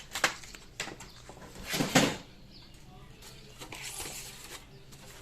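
Hands working on a laptop's hardware: a few light plastic clicks, then a short, louder scrape or rustle about two seconds in.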